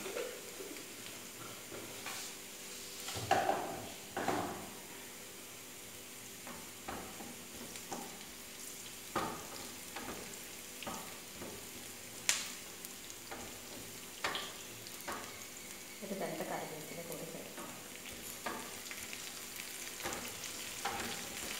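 Sliced shallots, garlic and fennel seeds sizzling in hot coconut oil for a tempering, with a wooden spatula stirring and scraping the pan now and then.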